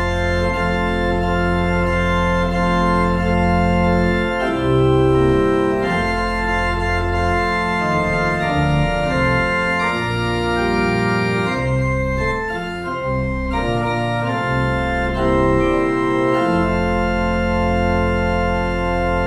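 Organ playing slow, sustained chords over a deep bass line, the chords changing every second or so.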